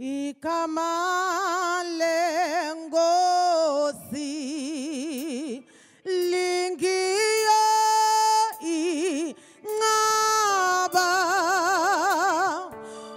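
A woman singing a gospel solo, unaccompanied: long held notes with a wide vibrato, sung phrase by phrase with short breaths between.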